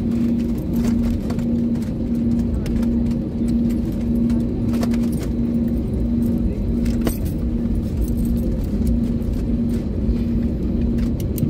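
Cabin noise inside an Airbus A320neo taxiing after landing: the engines at idle and the cabin air make a steady low rumble. A low hum pulses on and off about one and a half times a second, with a few light clicks and rattles from the cabin.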